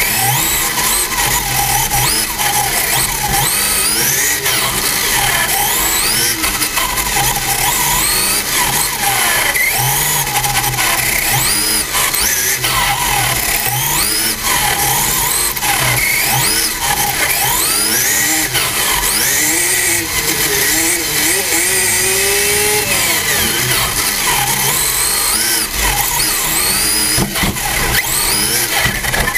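RC touring car's motor and drivetrain heard from on board, whining up and down in pitch again and again as the car speeds up on the straights and slows for corners.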